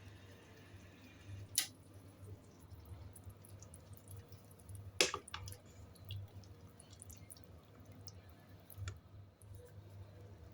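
Faint clicks and knocks over a low steady hum, the sharpest about five seconds in, as a kitchen stove is switched off under a pot of herbal soup.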